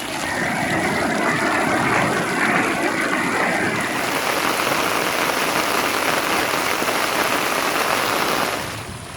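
Steady heavy rainfall, a dense even hiss that drops away shortly before the end.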